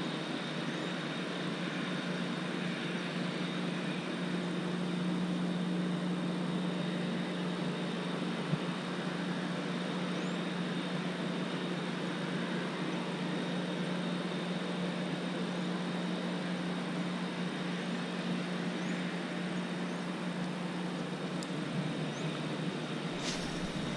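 A steady mechanical drone with a constant low hum under an even wash of noise, and a short hiss near the end.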